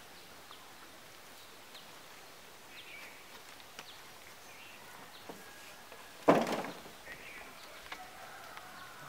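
Quiet outdoor ambience beside a pond, with a few faint bird chirps. About six seconds in comes one loud, sudden noise that fades within half a second.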